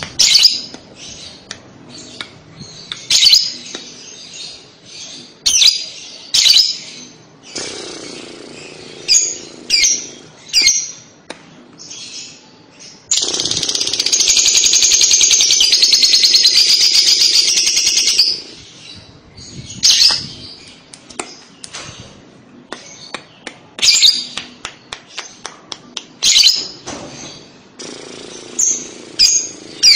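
Fischer's lovebird calling with sharp, high, repeated chirps. About halfway through it breaks into its long, rapid trilling chatter, the 'ngekek', held for about five seconds, then goes back to scattered chirps.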